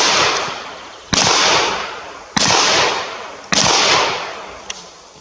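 Gunshots: three loud shots a little over a second apart, following the tail of one just before, each trailing off in a long echo, and a fainter, more distant shot near the end.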